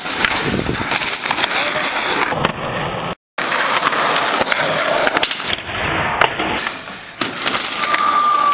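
Skateboard wheels rolling on concrete, with sharp clacks and knocks from the board hitting the ramp and landing. The sound cuts out briefly about three seconds in.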